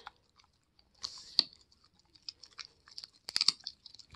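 A Siberian husky chewing a small piece of dried pig's ear with irregular crisp crunches, a few about a second in and a quick cluster about three seconds in.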